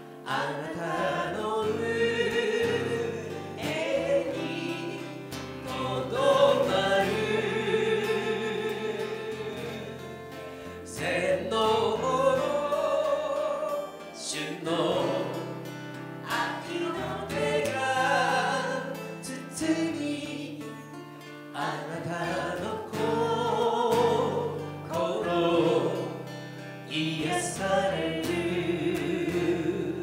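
A woman singing a Japanese worship song into a microphone, accompanied by acoustic guitar, in sung phrases with short breaks between them.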